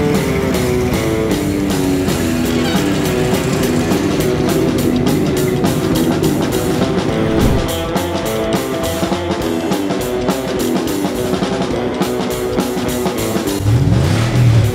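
Rock music with guitar and drums at a steady beat. Near the end a low sound swells and falls twice over the music.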